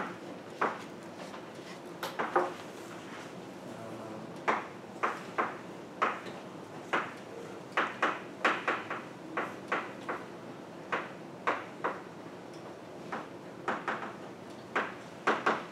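Chalk tapping and stroking on a blackboard as an equation is written: a string of short, sharp taps at an irregular pace of about two a second.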